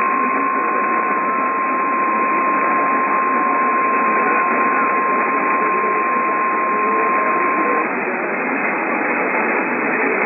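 NOAA Weather Radio warning alarm tone: one steady high-pitched tone over radio static hiss, cutting off about eight seconds in while the static carries on. The tone signals that an emergency weather warning is being broadcast.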